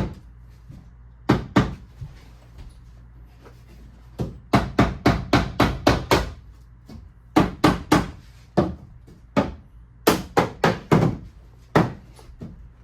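Hammering on a tongue-and-groove car siding board: runs of rapid sharp taps, about four or five a second, with short pauses between runs, driving the board over to close its joint tight.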